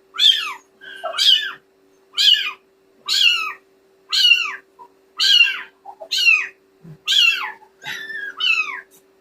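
Kitten mewing over and over, about ten short high-pitched cries, each falling in pitch, coming roughly once a second.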